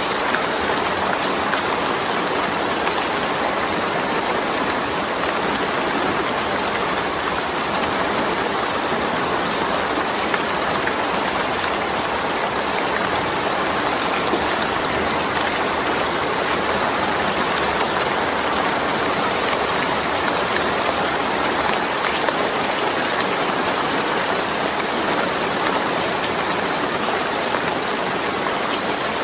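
Steady rain falling on a corrugated zinc roof, an even patter with scattered individual drop ticks.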